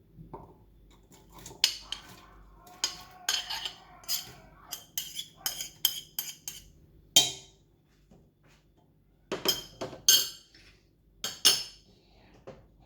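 Kitchen utensils and dishes being handled: a run of sharp clinks and knocks, several of them ringing briefly, coming irregularly.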